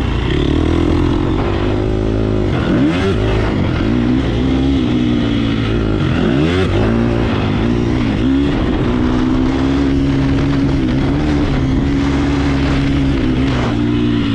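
Motocross dirt bike engine running hard, heard from on the bike. Its pitch drops and climbs back up several times in the first half, then holds steady at speed for a few seconds before another dip near the end.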